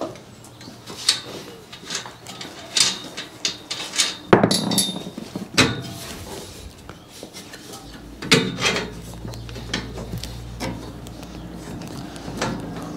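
Irregular metal clinks and knocks of hand tools on engine-mount bolts and a steel tube chassis, as an engine mount is undone. A low steady hum comes in about eight seconds in.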